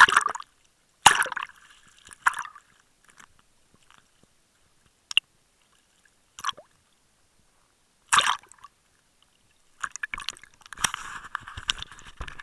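Sea water splashing and sloshing against a camera riding at the waterline, in short separate splashes a second or more apart with near quiet between, then a longer run of choppy splashing near the end.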